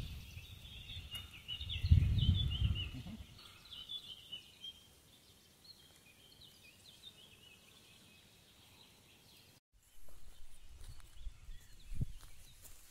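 Small birds chirping in quick, short notes for the first few seconds, with a low rumble about two seconds in; then faint outdoor ambience with a single low thump near the end.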